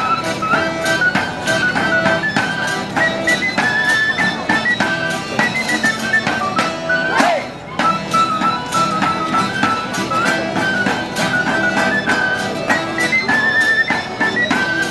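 Live Sicilian folk music from a small acoustic band: a held, stepping accordion melody over strummed guitars, with a steady percussive beat.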